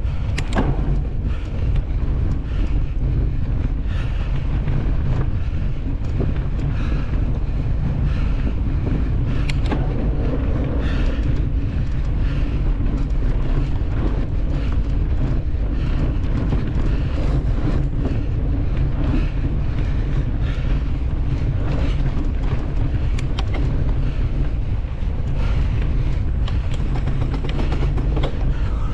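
Steady wind rumble on a GoPro action camera's microphone as a mountain bike is ridden, with frequent short clicks and rattles from the bike over rough ground.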